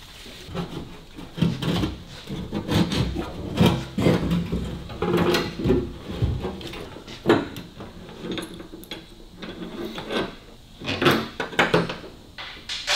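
Steel fuel tank being pushed and shuffled into place against a car's underbody by hand: irregular clunks and knocks with metal rubbing and scraping in between.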